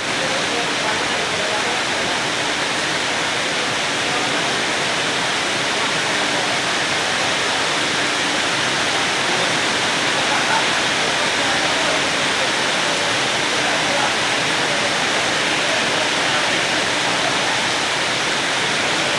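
Rain falling steadily: a dense, even hiss that holds at one level throughout.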